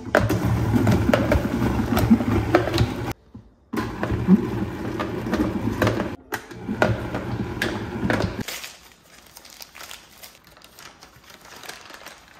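Vitamix blender run in three short pulses, each cutting off sharply, to chop onion and carrot coarsely so the pieces keep some texture. Softer crinkling of brown paper follows in the last few seconds.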